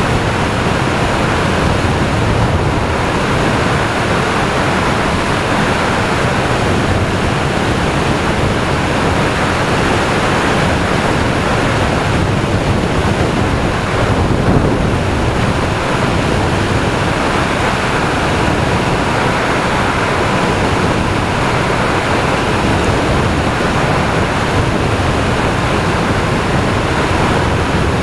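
Steady wind noise buffeting a motorcycle-mounted action camera's microphone at road speed, a dense rushing hiss with the ride's road and machine noise buried beneath it.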